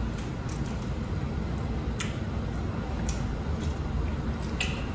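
Eating sounds of seafood being chewed and handled by hand: a few sharp clicks and smacks, about three over the few seconds, over a steady low room hum.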